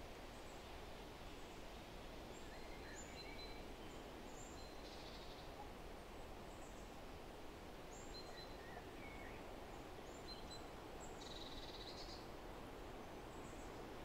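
Wind rushing steadily through forest trees, with scattered short high bird chirps. Twice a bird gives a brief buzzy trill, about five seconds in and again near eleven seconds.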